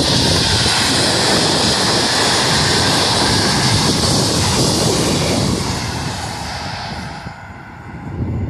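PKP Intercity locomotive-hauled passenger train passing close at speed: a loud, steady rush of wheels on rails. It fades away about six to seven seconds in as the last coaches go by and the train recedes.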